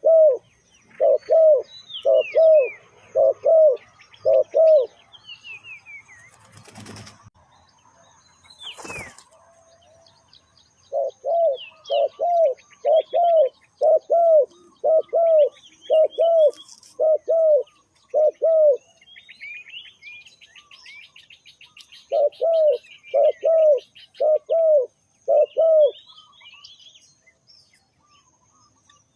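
Spotted dove cooing: three runs of low, evenly spaced coos, about two a second, with pauses between them. The runs start at the beginning, about 11 seconds in and about 22 seconds in. Smaller birds chirp faintly at a higher pitch throughout, and two short rustles come between the first and second runs.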